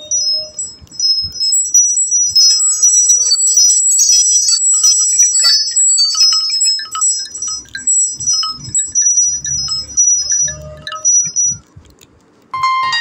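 A Nokia C1-01 stock ringtone playing: a high, tinkling chime-like melody of quick short notes over a few sparse low notes. It stops about a second and a half before the end, and the next, louder ringtone cuts in.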